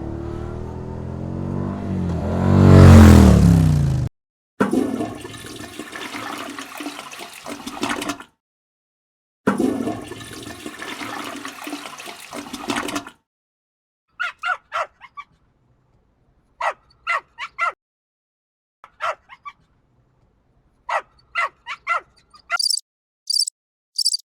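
A string of separate sound clips with abrupt cuts between them: an engine revving, its pitch climbing and falling once; then two stretches of rushing water like a toilet flushing; then a dog barking and yipping in short clusters; then rapid high-pitched beeps begin near the end.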